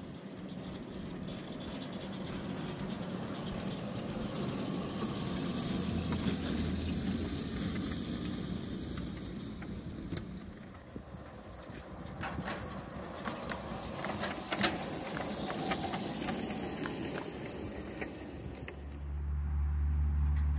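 Miniature 7¼-inch-gauge train with a wedge plow car rolling along the track, a steady rumble that builds and fades, with a run of clicks and snaps partway through. Near the end a steady low motor hum starts.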